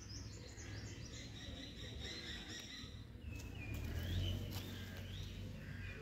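Small birds chirping and calling in quick, high, repeated notes over a steady low rumble that swells about four seconds in.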